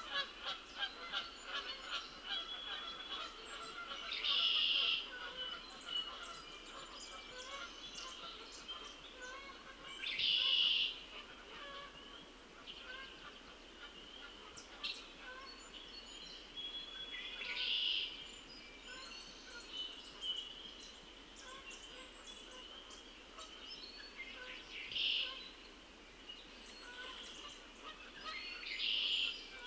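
Wildlife calling at a pond before dawn: a steady chorus of many short, high calls, with a louder, brief, high call repeated five times, roughly every six to seven seconds.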